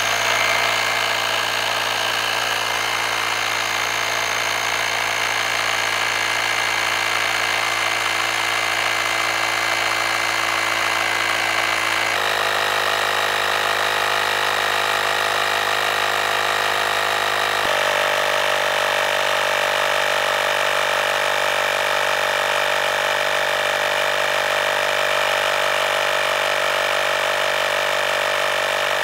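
Handheld rechargeable tyre inflator (a small portable air compressor) running steadily as it pumps a bicycle tyre up from 0 PSI toward its 42 PSI set point. Its tone shifts abruptly twice, about 12 and 18 seconds in.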